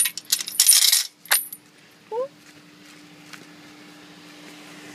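Metal clinking and jangling as the lock and chain of a farm gate are handled to open it. A short rising squeak comes about two seconds in, then a steady low hum from the waiting car's engine.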